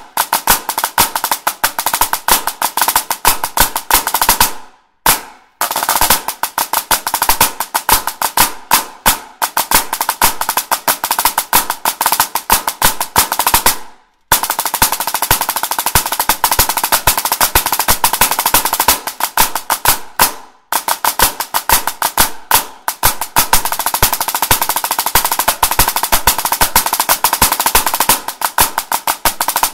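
Pipe band snare drum playing a rudimental 14/8 jig: fast strokes and rolls, with one brief break about 14 seconds in, followed by long, nearly continuous rolls.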